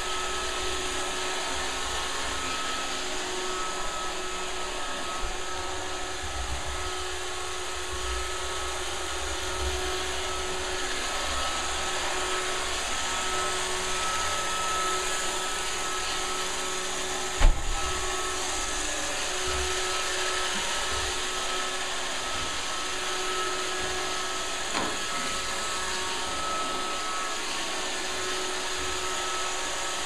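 Roomba robot vacuum running: a steady whirring hiss from its vacuum motor and brushes, with faint steady whines over it. A single sharp knock a little past halfway.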